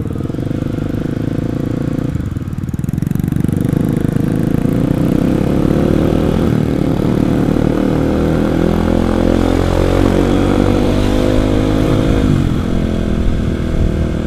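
Kawasaki KLX250's single-cylinder four-stroke engine pulling under acceleration, its note rising steadily for about nine seconds. The note drops sharply about twelve seconds in, then holds steady.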